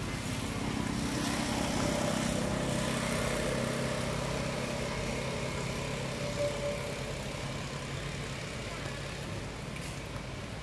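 A steady, low engine hum, like a motor idling, with a thin held tone over it through the middle.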